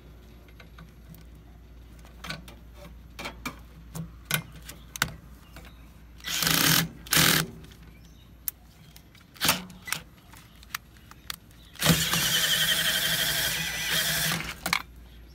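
Cordless drill driving a hex bit in a refrigerant service valve stem to run the valve closed: two short runs, then a longer run of about three seconds near the end, with scattered clicks and taps of tool handling between them.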